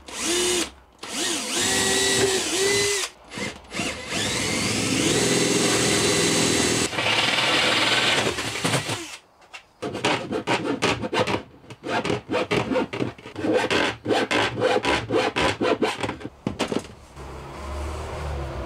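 Cordless drill boring cable holes through a thin metal panel, its motor pitch rising and falling as the trigger is worked for several seconds. After a short pause about nine seconds in, the drill runs in quick stop-start bursts for several more seconds.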